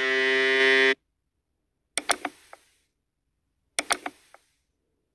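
Intro-animation sound effects: a harsh buzzing tone for about a second that cuts off sharply, then two quick clusters of sharp mouse clicks about two seconds apart.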